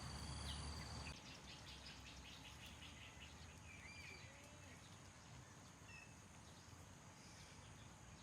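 Faint outdoor nature ambience: scattered short bird chirps over a steady thin high insect buzz. A low hum cuts off about a second in.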